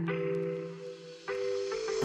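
Soft background music of sustained chords, changing to a new chord twice.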